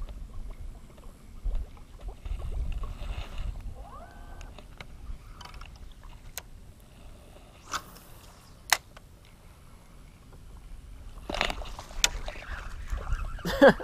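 Water lapping and a low wind rumble around a small fishing boat, broken by scattered light clicks and ticks of rod and line handling. Near the end comes a louder burst of splashing and knocks as a small snook strikes the topwater frog lure and is hooked.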